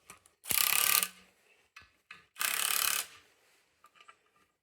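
Ratchet wrench cranked in two quick runs of rapid clicking, about half a second and two and a half seconds in, running down the bolts that hold a Subaru 2.5 SOHC clutch pressure plate to the flywheel.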